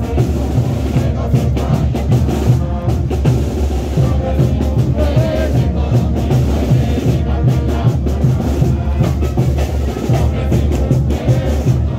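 Tinku dance music played loud, with a steady, heavy bass-drum beat under a melody.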